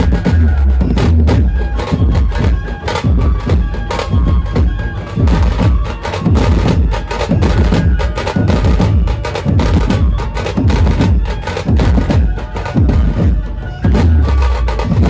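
Dhumal street band playing: fast, dense drumming with heavy bass and a melody line held over it.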